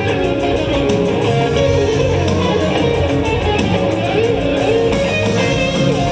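Rock band playing: electric guitar to the fore over bass guitar and drum kit, at a steady, loud level.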